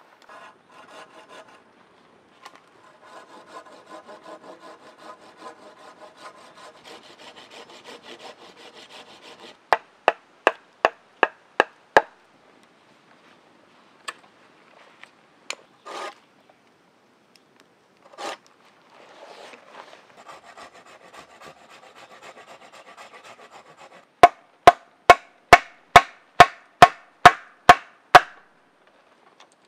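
A small hand saw rasps back and forth through a green sapling pole. Then comes a run of six sharp knocks, about two a second, as a wooden baton strikes a knife into the wood. A second spell of sawing follows, then about ten more baton knocks near the end.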